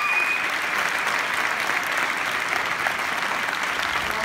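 A large audience applauding steadily. A single raised voice from the crowd trails off right at the start.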